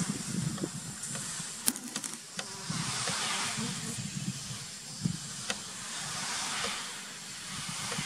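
Asian honey bee (Apis cerana) colony buzzing on the comb, with waves of hissing that swell and fade twice: the colony's alarm sound when disturbed. A couple of sharp clicks about two seconds in.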